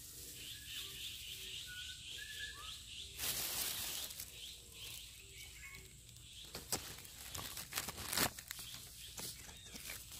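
Birds chirping and small repeated calls in woodland, with a burst of rustling about three seconds in and scattered crackling and rustling through the second half.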